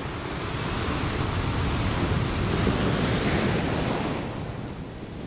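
Ocean surf, a steady rushing wash of breaking waves that thins out about four seconds in.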